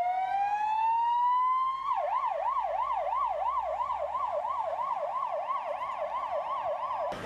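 Ambulance siren: a rising wail for about two seconds, then a fast yelp of about three sweeps a second, which cuts off suddenly near the end.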